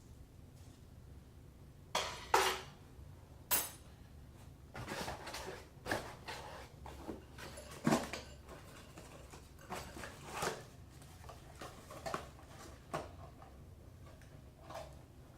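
Small faucet parts and their packaging being handled and laid out: irregular rustling with sharp clicks and clinks of hard pieces being set down, the loudest about two, three and a half, and eight seconds in.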